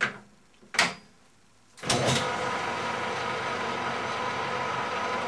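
Two sharp clicks about a second apart, then a small metal lathe's motor starts about two seconds in and runs steadily with a whine.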